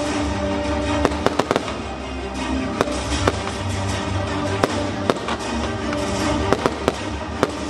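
Fireworks going off in scattered sharp cracks and pops, several in quick clusters, over steady background music.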